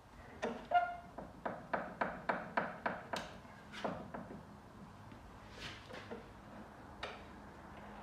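A quick run of about ten sharp metal knocks, roughly four a second, then a few scattered knocks. This is steel car bodywork being struck and worked with hand tools while the damaged inner wheel arch is pulled back into shape.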